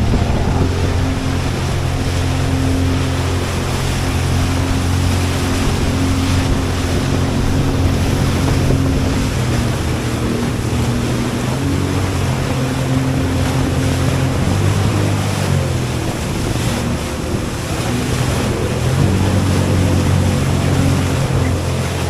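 Motorised watercraft engine running steadily at speed over water, its pitch shifting a few times as the throttle changes, with water rush and wind buffeting the microphone.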